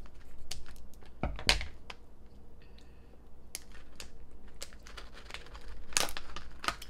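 A plastic pickle pouch rustling and crinkling as it is snipped with scissors and pulled open by hand: a scatter of sharp clicks and crinkles, loudest about a second and a half in and again near the end.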